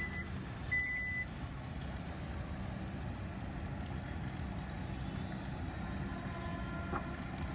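Hyundai Tucson's power tailgate warning chime beeping twice as the electric tailgate starts to close, then a steady low hum while it moves down.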